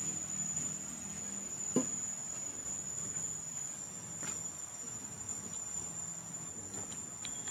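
Insects droning in one steady high pitch, with a single short knock just under two seconds in.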